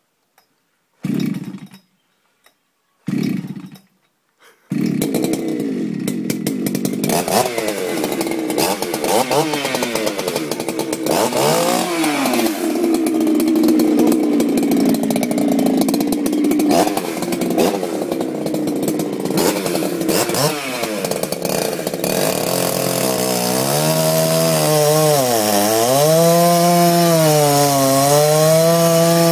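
Gasoline chainsaw engine starting: two brief bursts of running that die out, then it catches about five seconds in and runs on, its pitch swinging up and down as the throttle is worked, with strong revs near the end.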